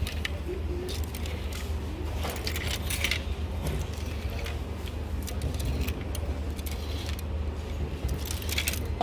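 Plastic clothes hangers clicking and clattering against one another as they are pushed along a clothing rack, tank tops flipped through one by one. The clicks come irregularly, several a second, over a low steady hum.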